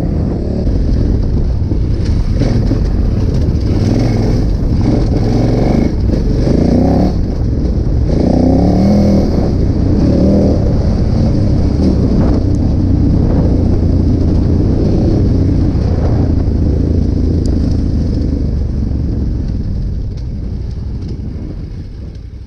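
KTM 990 Adventure's V-twin engine running as the motorcycle is ridden along, steady with some rises and falls in pitch. It fades out near the end.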